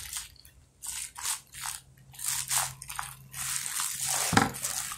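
Plastic bag crinkling in a run of short rustles as a block of wet clay is unwrapped and pulled out of it, with one duller knock near the end.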